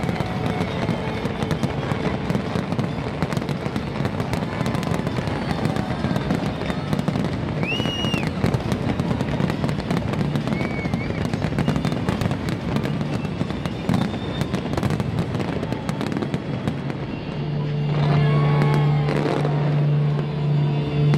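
Fireworks display: a dense run of bangs and crackling with music. Near the end a loud, steady low tone comes in.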